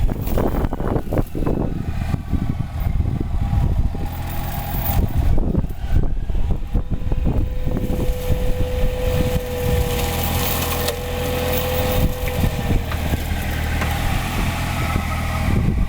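Excavator diesel engine running with a hydraulic mulcher attachment working, with irregular knocks and crackles in the first half. A steady whine rises out of it for about four seconds in the middle.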